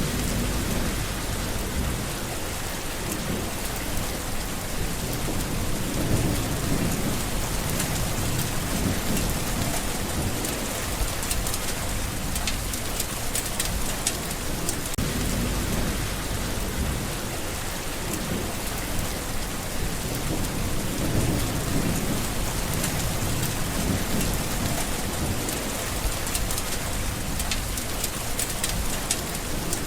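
Steady rain falling on green leaves, a continuous hiss dotted with sharp ticks of individual drops. Low rumbles swell and fade every few seconds.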